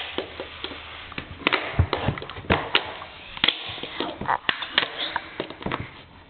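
A small blade cutting into the plastic barrel of a mechanical pencil, scraping and clicking irregularly as it saws at it.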